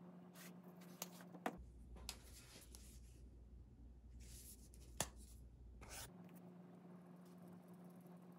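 Faint rustle of a plastic shaker of seasoning powder being shaken over fried food, with a few sharp clicks as the plastic bottle is handled.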